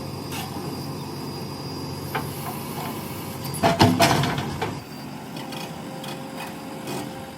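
JCB 3DX backhoe loader's diesel engine running steadily while digging. A sharp knock comes about two seconds in, and about halfway a loud burst of clattering knocks and scraping follows, typical of the steel bucket striking and dragging through soil.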